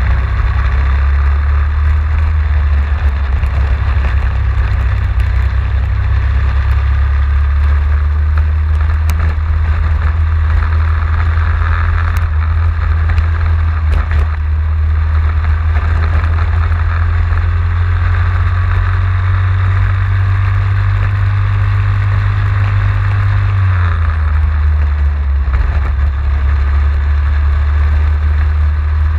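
Racing kart's engine running hard through a lap, heard from the onboard camera on the kart, with a steady low drone that drops in pitch about three-quarters of the way through.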